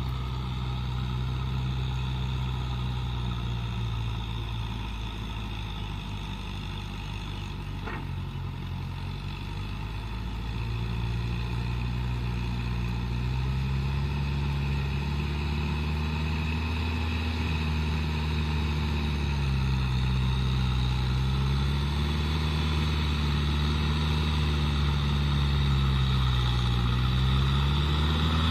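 Kubota tractor's diesel engine running as it tills a flooded, muddy paddy, the engine note rising and falling repeatedly as the load changes, and growing louder as the tractor comes closer.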